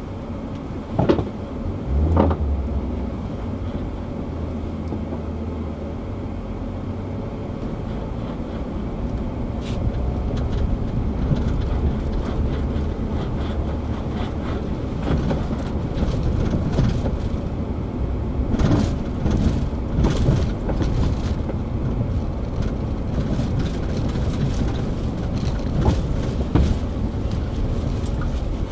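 Vehicle driving on a sandy dirt track, heard from inside the cab: a steady low rumble of engine and tyres, with sharp knocks and rattles as it goes over bumps, several in quick succession about two-thirds of the way through.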